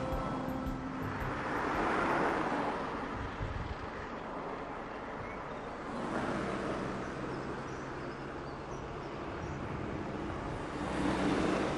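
Road traffic passing: a wash of tyre and engine noise that swells and fades three times as vehicles go by, with music fading out in the first second.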